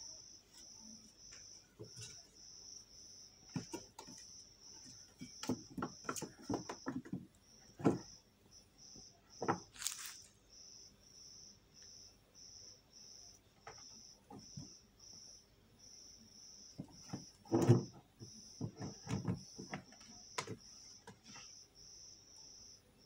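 Scattered knocks, taps and scuffles of cats playing on a concrete floor, the loudest thump about three-quarters of the way through. Under them a cricket chirps steadily, about twice a second.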